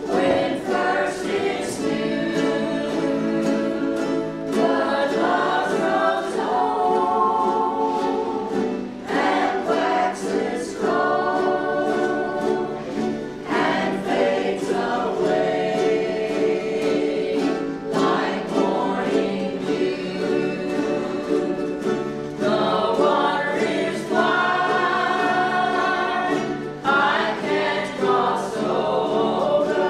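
A ukulele group strumming chords while singing together as a choir, many voices on one song.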